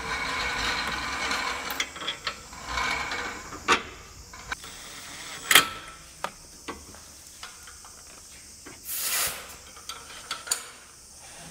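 Wrench work on a Toyota Prius's front stabilizer link: a ratchet buzzes and clicks as the link nut is run down, then sharp metal clinks of the spanner on the nut. The loudest clink comes about five and a half seconds in, and a brief hiss about nine seconds in.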